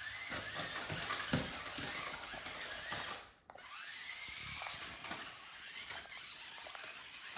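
Small battery-powered remote-control toy car driving, its electric motor whining up and down in pitch over a rushing noise, with a knock about a second and a half in.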